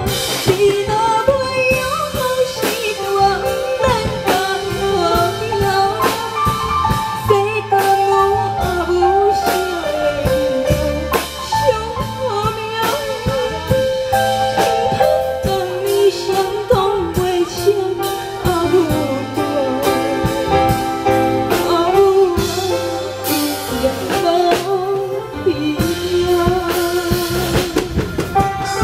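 A woman singing a Taiwanese Hokkien ballad through a microphone over a band backing track with a steady drum-kit beat.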